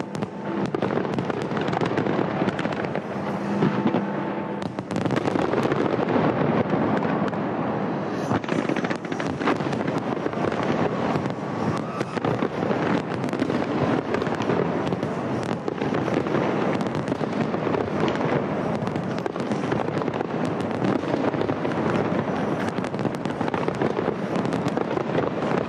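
Large professional fireworks display: a dense, continuous barrage of shells bursting and crackling, with many sharp bangs overlapping one another.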